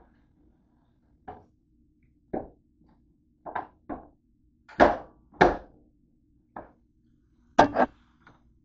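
About ten sharp metallic knocks and clacks at uneven intervals as a metal baking tray is handled in a toaster oven and slid out. The loudest come around the middle, with a quick double clack near the end.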